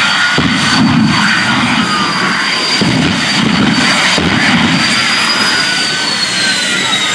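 The jet engine of the Flash Fire jet truck running at high power: a dense roar with a steady high whine, and uneven low rumbles pulsing under it. Near the end the whine starts to fall in pitch.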